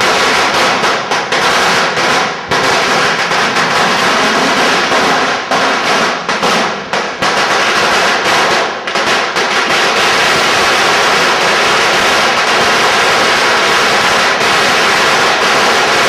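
Firecrackers going off in rapid, overlapping strings. In the second half the bangs merge into one continuous crackling din.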